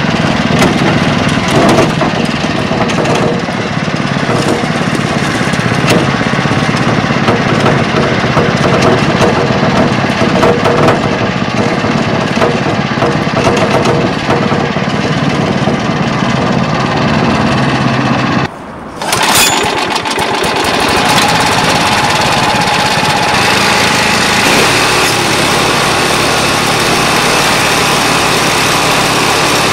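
Pasquali SB30 two-wheel tractor's engine running steadily while the tractor is driven with a trailer in tow. About two-thirds of the way through the sound drops out briefly and comes back brighter and higher-pitched.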